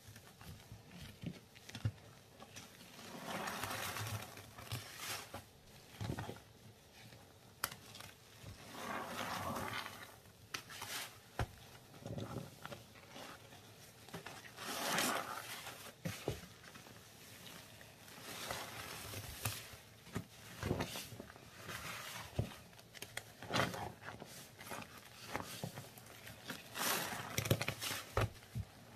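Gloved hands squishing and kneading a thick wet paste: wet squelching in irregular swells every few seconds, with many small sharp pops and clicks.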